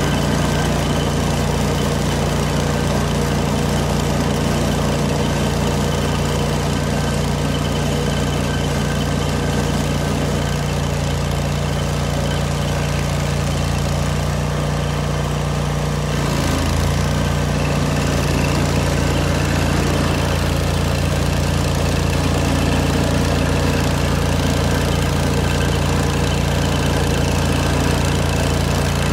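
Engine of an old Vermeer stump grinder running steadily, its note shifting a little past halfway through.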